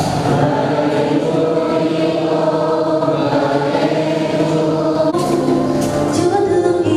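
A church choir singing a hymn in held chords, moving to a new chord about five seconds in.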